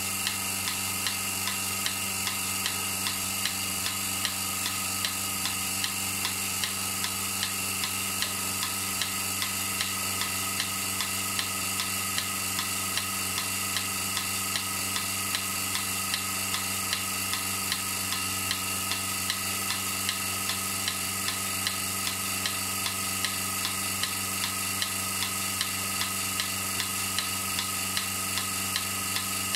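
Cow milking machine running: the pulsator ticks regularly over the steady hum of the vacuum pump.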